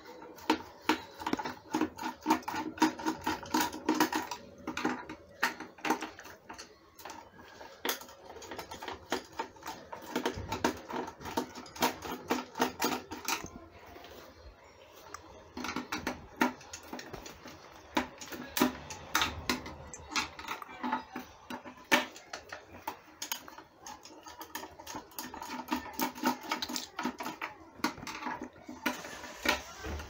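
A long screwdriver turning screws out of a plastic vacuum cleaner housing: many quick clicks and scrapes of metal on the screws and plastic, coming in spells, with some squeaking.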